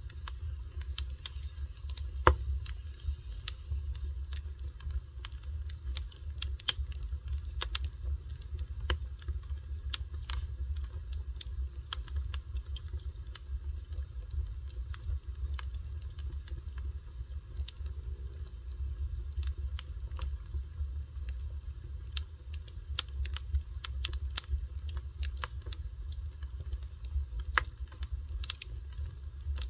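Wood fire crackling: irregular sharp pops and snaps over a steady low rumble, with one louder pop about two seconds in.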